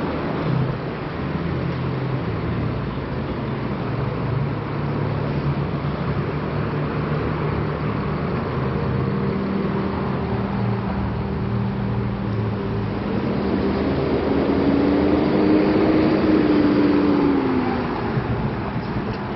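City street traffic: car and truck engines running and tyres on the road, a steady rumble. One vehicle grows louder and passes close by about 14 to 17 seconds in, its engine pitch rising and then falling.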